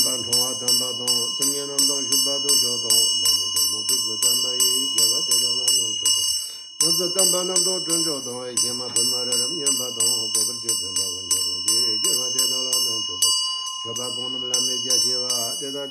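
Tibetan ritual hand bell (drilbu) rung continuously, its clapper striking about three times a second and keeping up a bright, ringing tone. Beneath it a man's low voice chants liturgy, with brief pauses around the middle and near the end.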